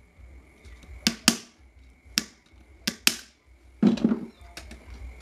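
Sharp taps of a hand tool striking a standing fan's motor housing while it is being dismantled: about five crisp strikes, some in quick pairs, then a duller knock near the end.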